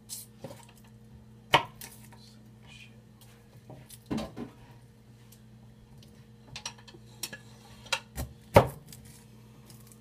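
Kitchen prep clatter: irregular knocks and clinks of utensils and dishes on a counter, a dozen or so, the loudest near the end. A faint steady low hum runs underneath.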